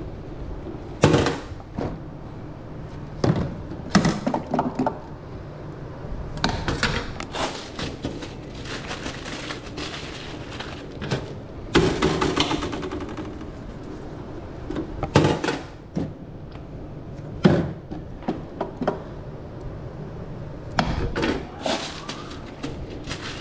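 Food-prep clatter at a hot dog cart: irregular knocks, thunks and rattles of lids, containers and utensils as an order of chili dogs is made up, over a steady low hum.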